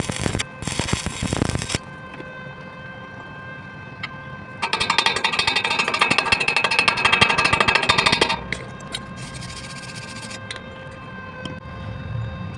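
Electric arc welding: a crackling arc for the first couple of seconds, then a louder, rapidly pulsing buzz of the arc from about four and a half to eight and a half seconds, over a steady machine hum.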